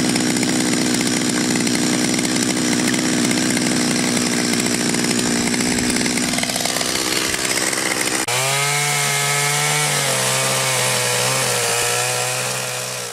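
Chainsaw running under load, cutting into wood, a dense steady buzz for about eight seconds. It then changes abruptly to a clearer, wavering engine note that fades away at the end.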